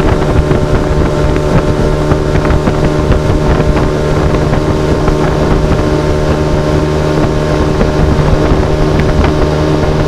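Outboard motor of a small aluminium fishing boat running steadily at speed, with wind buffeting the microphone and scattered knocks.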